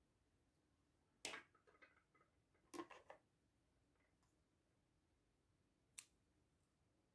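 Near silence broken by a few soft clicks and handling noises in the first three seconds, then one short, sharp snip of scissors cutting a cotton yarn end about six seconds in.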